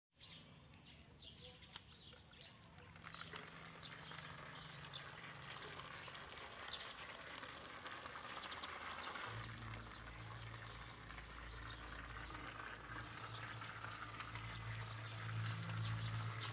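A click of the toy car's switch about two seconds in, then the faint whir of the cardboard toy car's small electric motor running as it drives its bottle-cap wheels across concrete.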